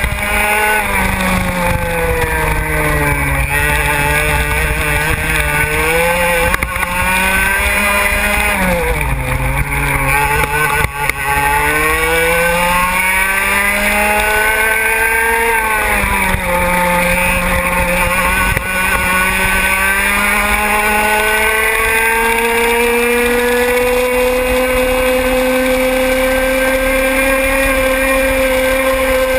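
125 cc two-stroke racing kart engine at high revs, heard from on board the kart. Its pitch drops sharply three times, about three, nine and sixteen seconds in, as the throttle comes off for corners, and climbs again each time, rising slowly along a long stretch near the end.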